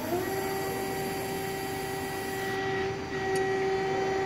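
CNC hydraulic press brake's servo-hydraulic drive (Hoerbiger system) running as the ram cycles for a bend: a steady whine that climbs in pitch as it starts, then holds level.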